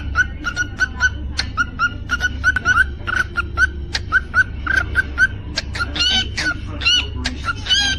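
Cockatiel chirping in quick, repeated short calls, with sharp clicks scattered between them and a steady low hum underneath.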